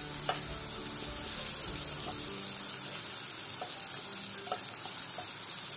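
Cauliflower florets frying in hot oil in a nonstick kadai: a steady sizzle, with a few light knocks as a wooden spatula scoops the browned florets out of the pan.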